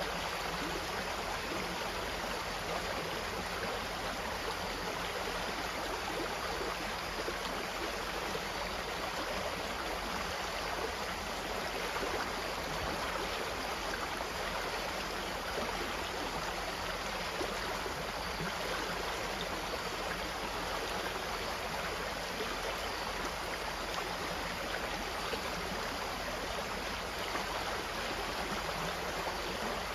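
A stream of water flowing steadily, an even rushing without breaks or changes.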